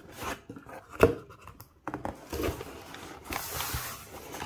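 Cardboard box flaps being pulled open and rubbed by hand, a rustling scrape, with one sharp knock about a second in.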